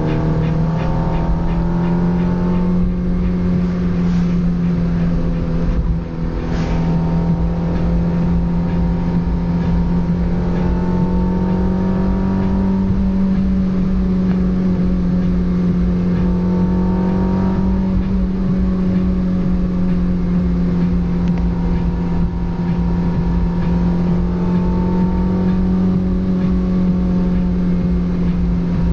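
Peugeot 205's engine and exhaust droning steadily under way, its pitch drifting slowly up and down, with a brief dip about six seconds in.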